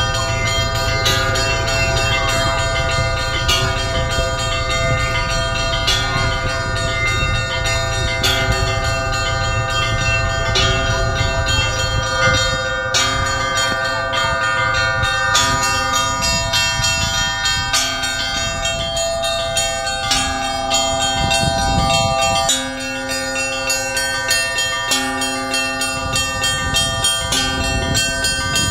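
Orthodox church bells rung by hand in a belfry, their clappers pulled on ropes: a continuous peal of several bells, with strikes following one another every second or less over the lingering ring of the larger bells.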